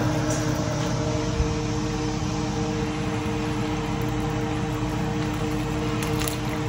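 Steady whirring hum of a kitchen fan motor, even throughout, with a couple of faint clicks.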